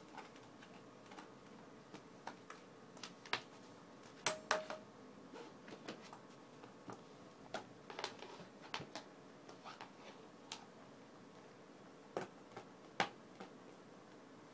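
Irregular sharp clicks and taps of a dog's teeth and mouth on a hard plastic flying disc as it mouths and carries it, the loudest a little over four seconds in and about thirteen seconds in.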